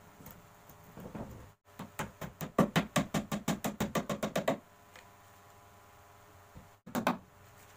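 A hammer tapping rapidly on the plywood table, about seven light blows a second and growing louder, then stopping. Two more quick knocks follow near the end.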